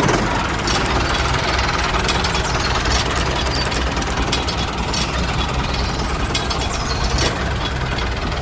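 Small motor of a DIY mini tractor running steadily, with a rattle of scattered clicks.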